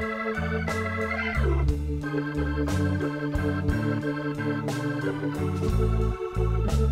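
Background music: a keyboard tune with a held note over a changing bass line, and a quick falling slide about a second and a half in.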